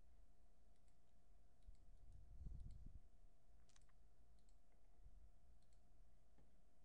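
Near silence with a faint steady hum, broken by a few faint, scattered computer mouse clicks and a brief low rumble about two and a half seconds in.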